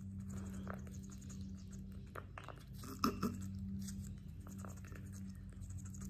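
Quaker parrot biting into a piece of raw red bell pepper: soft, scattered crunching and beak clicks, a couple of louder ones about three seconds in, over a steady low hum.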